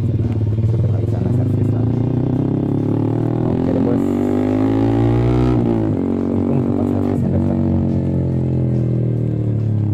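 Loud Yamaha R15 V3 155 cc single-cylinder engine through an R9 aftermarket racing exhaust, pulling away. Its pitch climbs for a few seconds, drops suddenly about halfway through, then runs on steadily.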